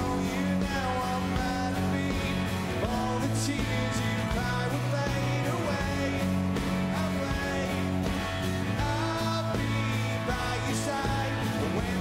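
Live rock band playing: a strummed acoustic guitar and drums, with a man singing lead vocals and a couple of cymbal crashes.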